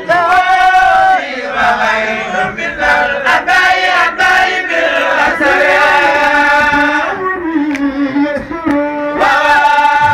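Man chanting a devotional poem in Arabic into a microphone, with long held notes that bend into ornamented turns.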